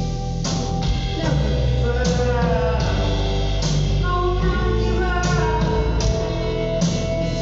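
Live band music with a woman singing long, sliding notes over guitar and a steady bass, heard from far back in a concert hall.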